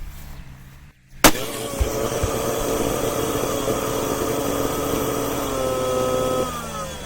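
An electric motor switches on with a sharp click about a second in, spins up, runs steadily for about five seconds, then winds down and stops near the end.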